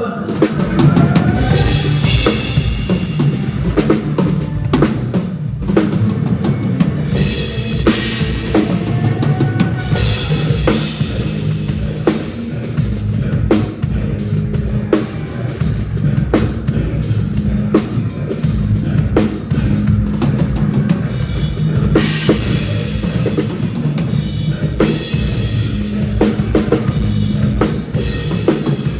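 Drum kit played in a groove, with bass drum, snare and cymbals, over music with steady low sustained notes underneath.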